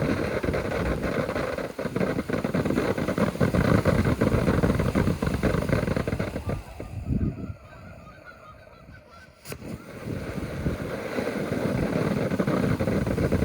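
Consumer firework fountain spraying stars with a steady rushing, crackling noise. About seven and a half seconds in it dies down, a sharp pop follows about two seconds later, and the spraying builds up again.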